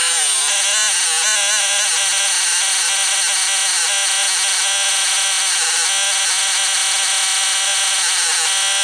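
Small electric fuel pump running, with a steady buzzing whine as it pumps nitro glow fuel through a line into a model plane's tank. Its pitch wavers for the first couple of seconds, then holds steady.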